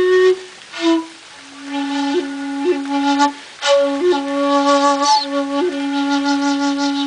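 A 1.9 shakuhachi bamboo flute playing a slow phrase: long held low notes, each decorated with quick grace-note flicks, separated by short pauses.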